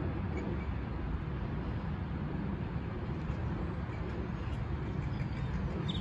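Gusty wind buffeting the microphone: a steady, fluttering low rumble.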